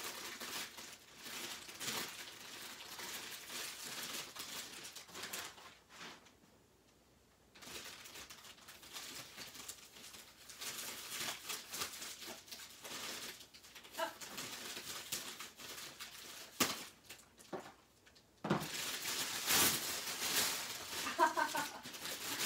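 Cellophane gift wrap crinkling and rustling as it is handled and pulled open, in spells of crackling with two short pauses, louder near the end.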